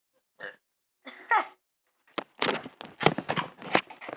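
A child's long, loud burp with a rough, pulsing sound, starting about two seconds in, after a couple of short vocal sounds.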